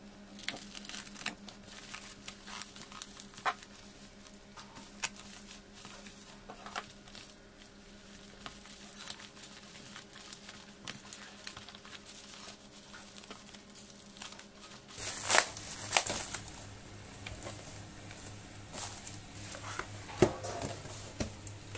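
Plastic courier wrapping and bubble wrap being cut with a utility knife, then crinkled and torn open by hand, in irregular crackles and rustles, louder bursts of crinkling about two-thirds of the way in and near the end.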